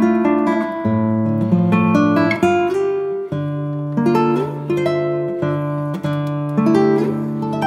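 Acoustic guitar music, plucked notes over held bass notes.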